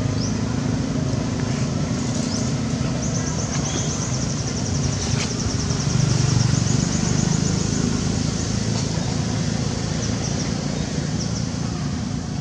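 Outdoor background with a low, steady engine-like hum. From about three to eight seconds in, a fast, high pulsing buzz runs over it.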